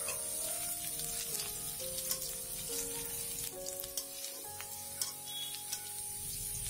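Chopped onion and garlic sizzling in hot oil in a karahi, stirred with a metal spatula that clicks and scrapes against the pan. Soft background music plays underneath.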